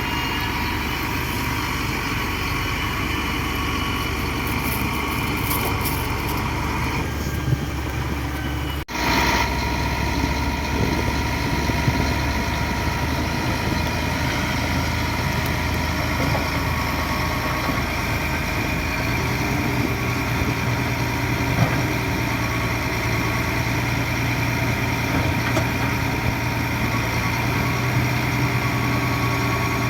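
Diesel engine of heavy earthmoving machinery running steadily. The sound drops out for a moment about nine seconds in, and the engine note shifts around nineteen seconds in.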